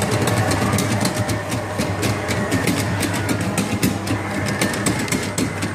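Coin-operated speed-boat kiddie ride running: a steady low hum with a rapid, irregular clatter of clicks from its mechanism.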